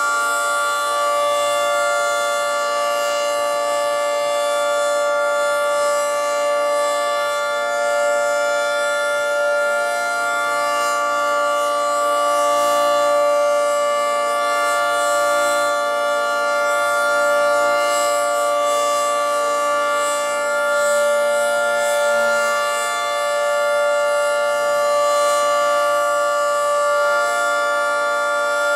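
Federal Signal 2T22 dual-tone (10/12-port) outdoor warning siren sounding a steady alert tone, a two-pitch chord held at full pitch, slowly swelling and fading in loudness as the head rotates.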